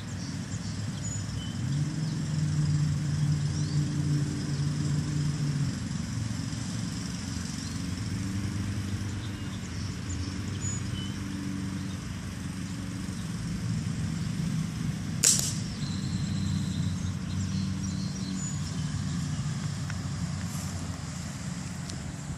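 A steady low engine hum, its pitch shifting slowly, with one sharp gunshot crack about fifteen seconds in.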